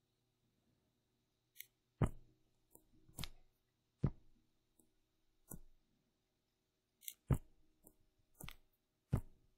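About nine sharp clicks and taps at irregular intervals, from a computer pointing device being used to select and copy handwritten work on screen.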